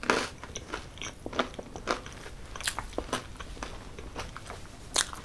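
Biting and chewing through crisp, extra-crunchy pizza crust: a string of short crunches and crackles, the sharpest right at the start and again about five seconds in.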